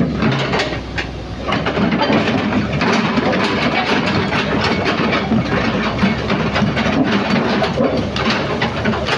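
SANY crawler excavator's diesel engine running under load as the machine tracks down a trailer ramp, its steel tracks clanking and knocking. The engine gets louder about a second and a half in.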